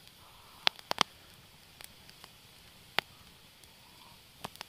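Campfire of logs and green spruce branches crackling: a handful of sharp pops, two close together about a second in, over a faint hiss.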